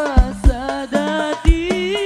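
A young male singer sings Arabic sholawat in a high voice with wavering, ornamented melodic runs, over hadrah percussion with deep drum thumps every half second or so.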